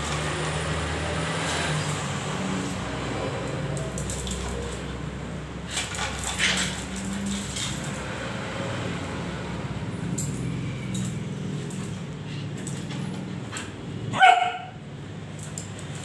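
Shih Tzu and corgi play-fighting, with low continuous growling and one loud, short bark about fourteen seconds in.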